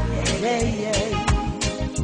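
Ghanaian gospel reggae music with a heavy bass line and regular drum hits.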